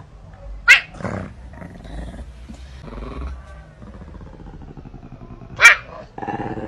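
Domestic cat growling low, broken by two sudden, loud hisses, one just under a second in and one near the end.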